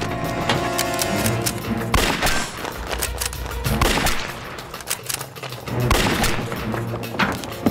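Gunfire: several sharp shots, a few seconds apart, over a dramatic film score.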